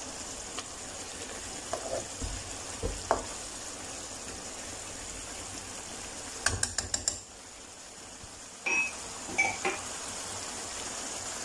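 Tomato and spice masala sizzling in a pan while a spatula mashes and stirs it, with scattered knocks and scrapes of the utensil against the pan and a quick rattle of clicks about six and a half seconds in.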